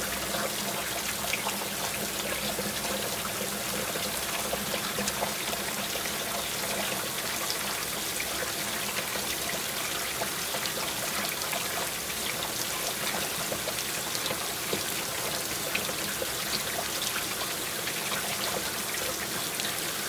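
Rain falling steadily: a dense, even hiss with many small drop ticks scattered through it.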